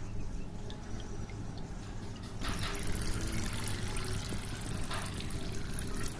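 Water trickling and splashing around small foam toy boats as their motor-driven paddles work the water, over a steady low hum. A brighter hiss comes in about two and a half seconds in.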